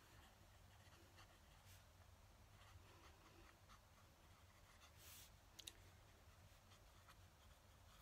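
Fountain pen nib scratching faintly across paper in short, irregular writing strokes. A brief sharp click a little past halfway is the loudest sound.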